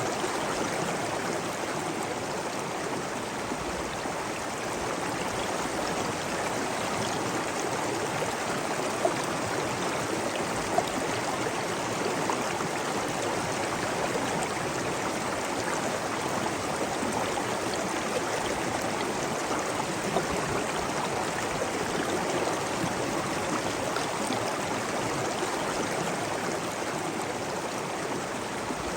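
Steady rushing of flowing water, a stream or waterfall, an even splashing rush with three brief sharp ticks standing out about nine, eleven and twenty seconds in.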